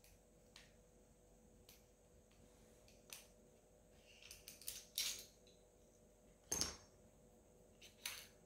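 Faint, separate small metal clicks and taps as a bearing installation tool is loosened and worked out of a Novarossi Bonito nitro engine's crankcase, the loudest tap a little past the middle.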